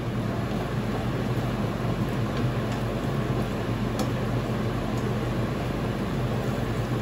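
Kitchen range hood exhaust fan running steadily: a rush of air over a low hum, just switched on.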